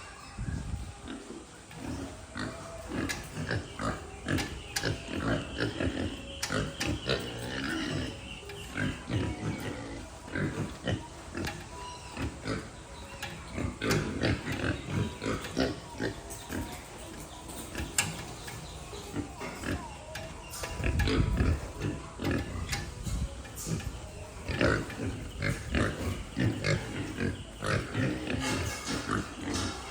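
Pigs grunting and moving about in a pen, with many short knocks and clatters. A louder low rumble comes about two-thirds of the way through.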